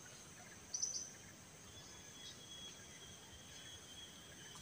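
Faint, steady high-pitched insect chirring outdoors, with a short, louder burst of chirps about a second in.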